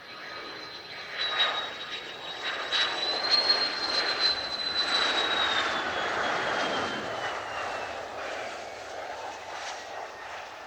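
A Mitsubishi F-2 fighter's turbofan jet engine heard as the aircraft passes. A high whine sits over the rushing engine noise. The noise swells to a peak a few seconds in, then the whine slides down in pitch and the sound fades away.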